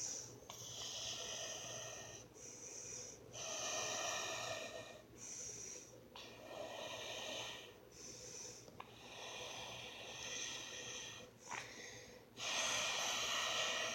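Breath blown through a straw into fluffy slime to inflate a bubble: a series of about ten breathy puffs with short gaps, the one near the end the loudest, with a few faint clicks.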